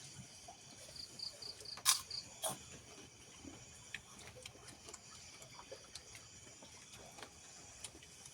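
Faint steady insect chorus of high, even chirring. About a second in there is a short run of about six quick high chirps, and two sharp clicks follow close together around two seconds in.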